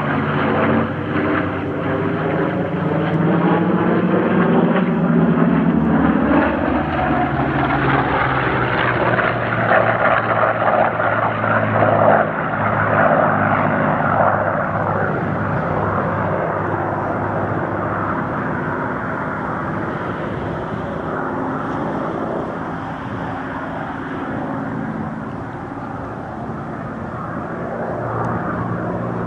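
Piston-engined propeller warbirds flying past in an air display. The engine note bends in pitch as they pass, is loudest about ten to thirteen seconds in, then slowly fades.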